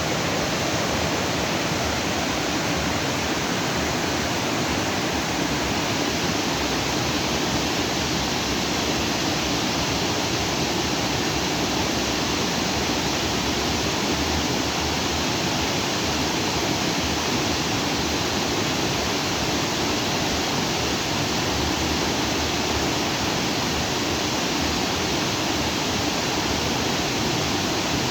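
Shallow stream of water running over and between rocks, a steady rushing that does not change.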